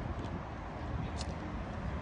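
Steady outdoor background noise in a town park: a fluctuating low rumble, with a couple of faint short ticks about a second in.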